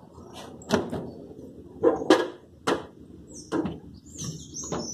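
Consul refrigerator door and plastic freezer-compartment flap being opened and handled: a series of about six sharp plastic knocks and clacks. Birds chirp near the end.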